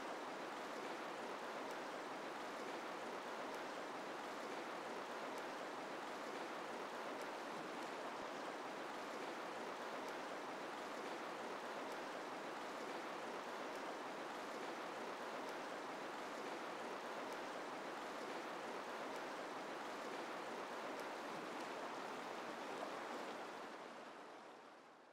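Steady rushing of flowing water, an unbroken even wash that fades out near the end.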